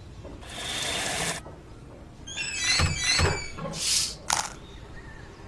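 Cartoon sound effects: a whoosh, then a run of high-pitched squeals with two low thumps, ending in a short hiss and a sharp click.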